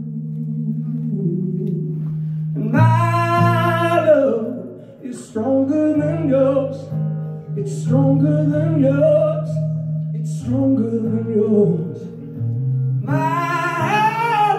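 Live male vocal with an acoustic guitar: the singer holds long, wavering sung notes over ringing guitar chords, rising to two loud, high held notes about three seconds in and near the end.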